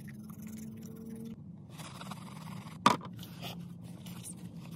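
Paper or tissue being handled and rustled, with one sharp click about three seconds in, over a steady low hum.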